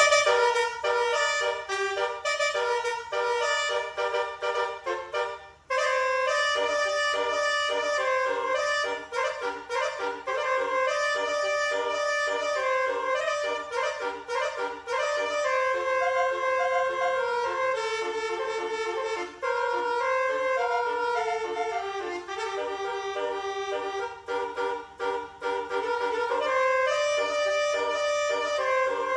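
Basuri telolet bus horn, its several air-horn trumpets playing a long tune of held chords and stepping notes. The tune breaks off briefly about five seconds in, and there is a fast warbling note about two-thirds of the way through.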